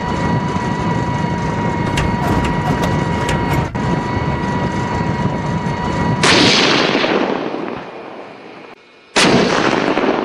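Battery toy tank's steady whirring hum with a held high electronic tone, then two explosion sound effects about three seconds apart: each a sudden blast that fades out over a second or two.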